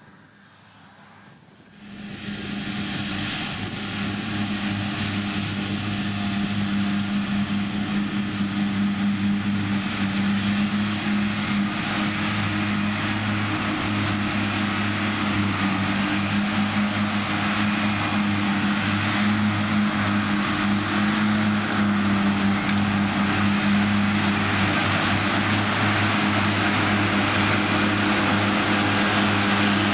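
Claas Axion tractor's diesel engine pulling steadily under load while its front and side mowers cut grass, a loud, even engine drone over the whirr of the mowers. It cuts in suddenly about two seconds in after a fainter start and grows slightly louder.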